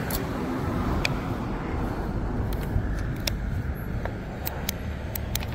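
Road traffic: a steady rumble of passing cars, with a few light clicks.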